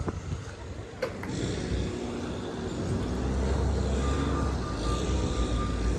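A motor vehicle's engine running, its low rumble growing louder about halfway through, with a thin steady whine joining from about four seconds in.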